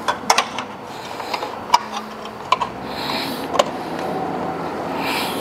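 Sharp metal clicks and taps as a bent metal strap bracket is worked into place over a small air compressor, then cloth rustling close to the microphone with two short swishes.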